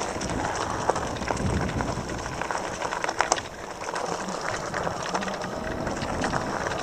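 Electric bike rolling along a rough, overgrown dirt trail: steady tyre and rattle noise with scattered clicks and knocks.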